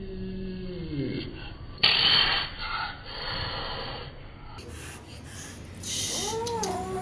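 A kitten's falling cry, then a sudden loud hiss about two seconds in that trails off into breathy hissing. Near the end the kitten gives a long, wavering meow.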